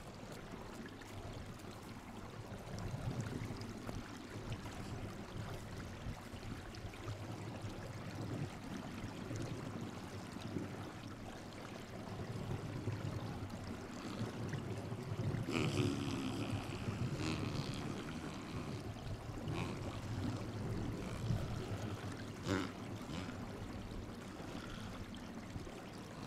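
Spotted seal biting and chewing a lump of snow, with a short strained vocal sound from the seal about 16 seconds in. A steady rushing noise runs underneath.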